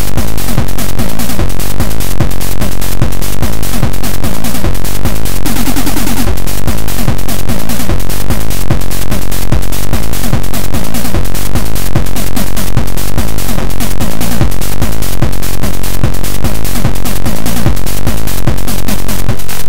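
Fast electronic chiptune from a ZX Spectrum's AY sound chip: buzzy stepped square-wave tones over a dense run of short drum hits.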